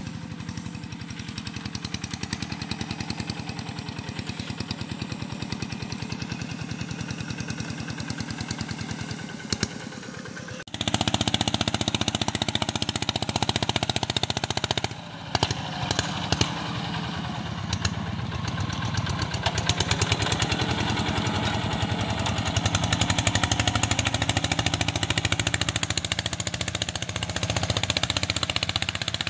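Single-cylinder diesel engine of a walk-behind two-wheel tractor running under load while it pulls a disc plough through soil, with a loud, rapid, even exhaust beat. The engine gets noticeably louder about eleven seconds in.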